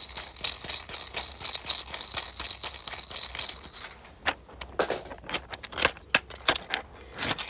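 Gyro on a small 3D-printed plastic fidget toy being spun: a rapid plastic clicking rattle with a faint high whir, thinning to sparser clicks about halfway through.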